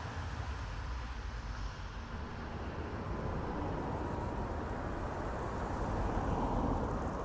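Road traffic: a steady wash of tyre and engine noise with a low rumble, as the sound of a car that has just passed fades at the start and traffic swells slightly again near the end.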